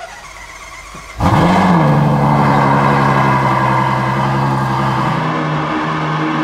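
Ferrari GTC4Lusso's V12 cold start: the engine fires about a second in with a quick rising rev flare, then settles into a steady, fast cold idle.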